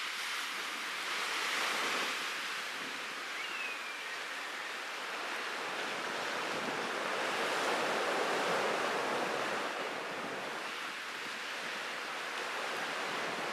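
Wind and rough sea: a steady rush of waves and wind blowing over the microphone, swelling louder a couple of seconds in and again past the middle.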